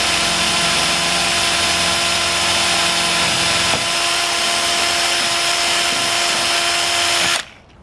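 Power drill running steadily with a steady whine as its bit bores through fiberglass tube. The deep part of the sound fades about four seconds in, and the drill stops suddenly near the end.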